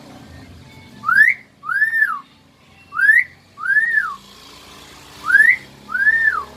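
Common hill mynah whistling a two-note wolf whistle three times: a quick rising note, then an arching rise-and-fall note, with a pause of about a second between repeats.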